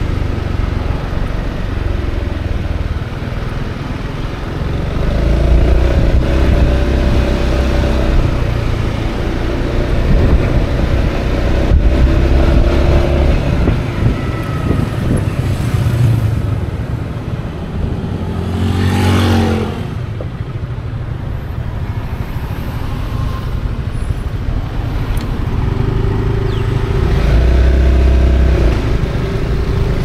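Honda Forza 350 scooter on the move: its single-cylinder engine running under a dense rush of riding wind on the microphone, the engine note swelling louder in several stretches. About two-thirds of the way in, a brief rush swells and fades over a couple of seconds.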